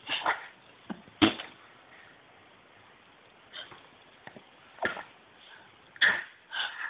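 A baby blowing raspberries, spluttering mouth noises like farts, in about six short bursts with pauses between them.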